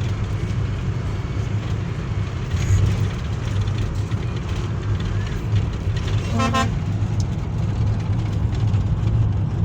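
Motor vehicle travelling on the road, a steady low engine and road rumble, with one short horn toot about six and a half seconds in.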